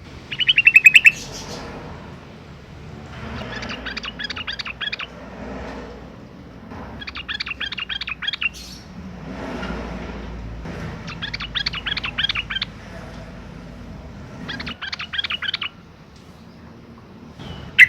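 Yellow-vented bulbul (trucukan) singing: a loud, rapid chatter about half a second in, then four bubbling phrases of quick notes, each one to two seconds long and a few seconds apart, and a loud sharp call at the very end.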